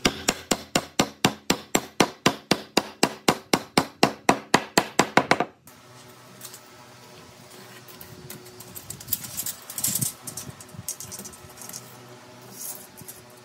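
Hammer striking a wooden plank in rapid, even blows, about five a second, driving two boards together over joining pins; the blows stop suddenly about five and a half seconds in. After that only faint scraping and light taps of a steel tape measure and pencil on the board.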